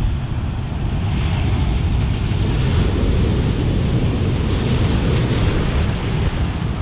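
Ocean shore break surging and foaming in the shallows around a kayak, with wind buffeting the microphone in a heavy rumble. Near the end, a wave's whitewater washes up over the kayak's bow.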